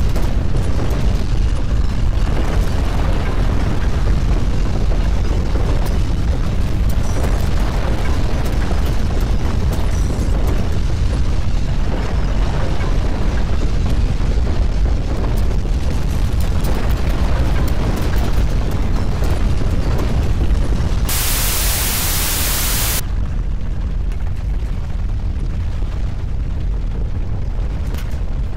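Deep, continuous earthquake rumble, heaviest in the low end, with a burst of steady hiss lasting about two seconds a little over two-thirds of the way through.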